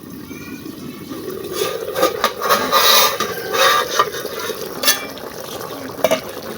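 A spoon stirring and scraping in a cooking pot, with several sharp clinks spread through.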